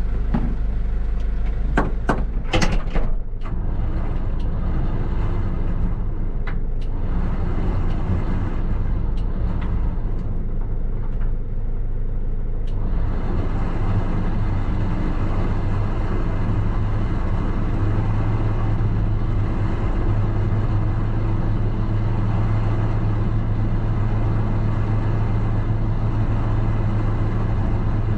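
Recovery truck's diesel engine idling steadily, with a few sharp knocks and clicks about two to three seconds in. About 13 seconds in the running note fills out and grows a little louder.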